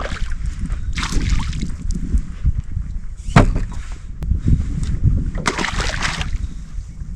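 Water splashing and sloshing in bursts as a hooked bass is brought to the side of the boat, with a sharp knock about three and a half seconds in.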